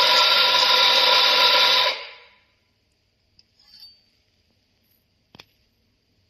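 BG64T4A 64 mm flat-burr espresso grinder running and grinding coffee, a steady motor-and-burr whine that stops about two seconds in and dies away over half a second. A faint brief rustle follows, then a single light click.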